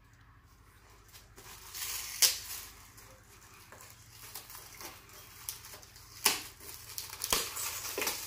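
Shiny gift-wrapping paper being unwrapped by hand: rustling and crinkling with several sharp tearing crackles, starting about a second and a half in.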